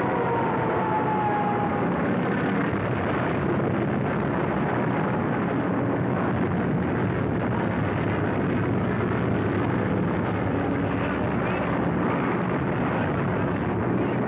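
Steady roar of aircraft engines from an air-raid sound effect on a muffled 1940s film soundtrack, with a falling whine in the first two seconds.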